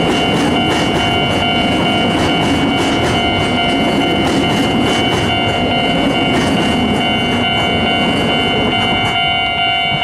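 Freight train of Hoki 10000 coal hopper wagons rolling past and away, the wheels clicking over rail joints in a rhythm that thins out near the end, over a low rumble. A steady high ringing tone sounds throughout.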